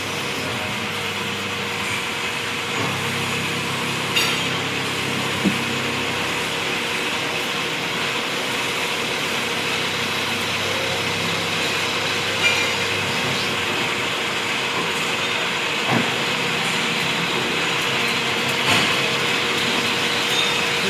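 CNC machine running steadily: a constant hum with a steady tone through it, and a few short clicks or knocks now and then.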